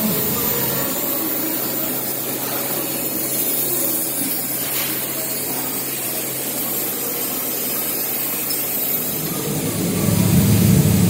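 Steady hum and hiss of running factory machinery around a roller conveyor. A louder low rumble builds near the end.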